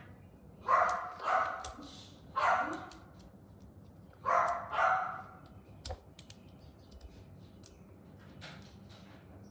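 A dog barks about five times in short, sharp barks over the first five seconds. After that come a few light clicks of a small toy being handled.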